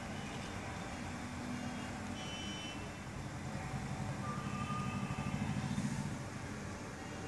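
Steady low background rumble with hiss, swelling slightly about five to six seconds in, with a few faint short tones over it.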